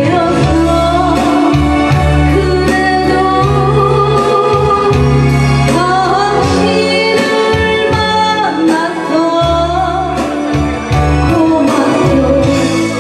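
A woman singing a Korean trot ballad into a handheld microphone, amplified, over instrumental accompaniment.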